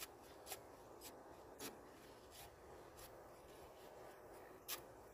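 Near silence with faint, scattered short scrapes and clicks, roughly every half second at first, with one a little stronger near the end: a long-handled tool working wet concrete in a mailbox post hole.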